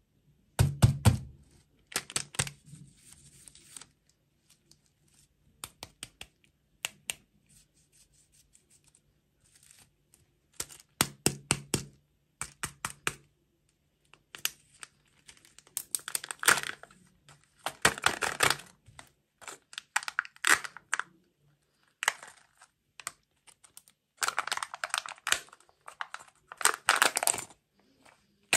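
Kinder Joy egg being unwrapped by hand: its foil wrapper crinkles and tears in short bursts, with small clicks and taps as the plastic capsule is handled and its seal peeled back. A dull thump comes about a second in.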